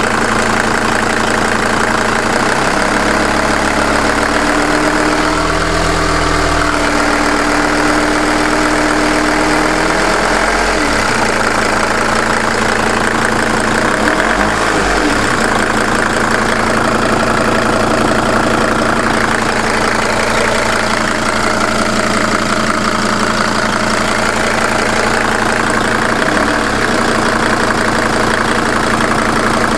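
Mercedes-Benz E290's OM602 five-cylinder diesel idling steadily, warmed up, with a knock that the owner can't decide is a real fault or imagined.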